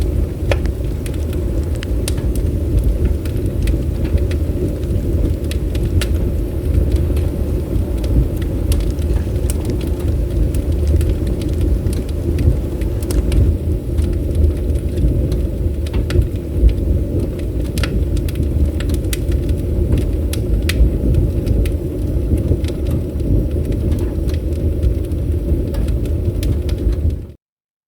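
Bonfire burning: irregular sharp crackles and pops of burning wood over a steady low rumble. The sound cuts off abruptly near the end.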